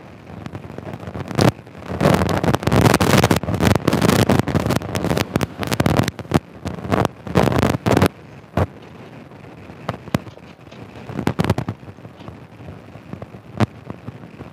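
Wind buffeting the microphone of a camera on a moving motorcycle, in irregular gusts with sharp crackling hits, heaviest in the first half and again briefly later on.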